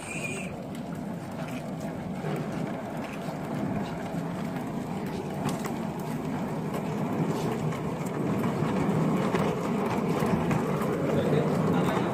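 Small wheels of several oxygen concentrators rolling over paved concrete, a steady rumble that grows louder toward the end.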